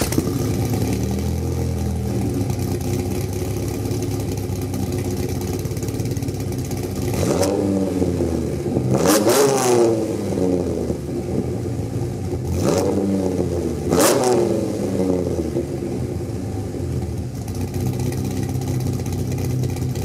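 Dodge Viper GTS's 8.0-litre V10 idling through its twin centre exhaust, blipped twice about halfway through and twice more a few seconds later, each rev rising and falling back to idle.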